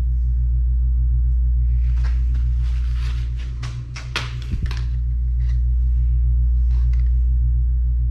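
Steady low hum throughout, with rustling and light clicks from about two to five seconds in as thin paper gaskets are handled and held against a transfer case housing.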